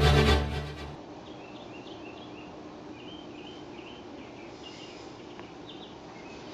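Music fading out in the first second, then outdoor backyard ambience: a steady faint hiss with short bursts of bird chirping scattered through.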